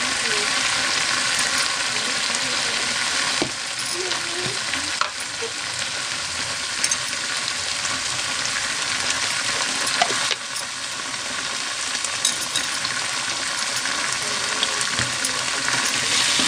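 Ground masala paste (garlic, mustard, black pepper and cumin) sizzling steadily in hot oil in a kadai as powdered spices go onto it, with a few sharp clicks. The sizzle dips slightly twice.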